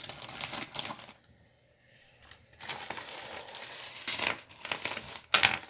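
Costume jewelry and beads being handled and shuffled, clinking and rattling in two spells with a short pause between, and a sharp click near the end.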